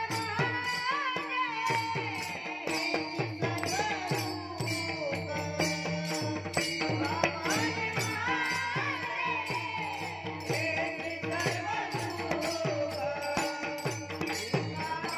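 A boy's voice singing a Marathi Warkari devotional bhajan, with small hand cymbals (taal) clashed in a steady rhythm and low drum strokes keeping the beat under a sustained drone.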